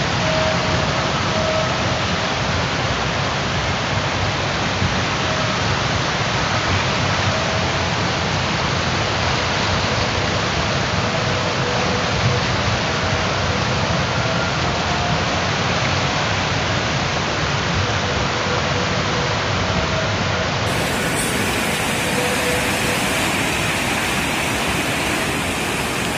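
Muddy flash-flood water rushing past in a steady torrent. The sound changes abruptly about twenty seconds in, moving to another stretch of floodwater.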